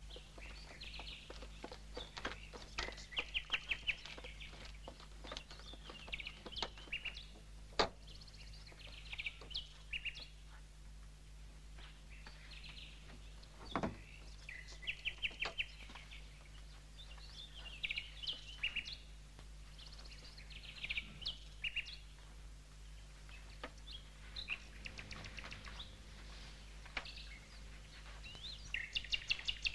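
Small birds chirping and twittering in repeated short bursts, over a steady low hum, with a couple of sharp clicks about eight and fourteen seconds in.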